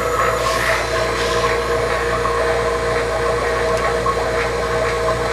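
HVAC vacuum pump running steadily, pulling a vacuum through tubing on an open brake caliper bleeder. A brief hiss about half a second in.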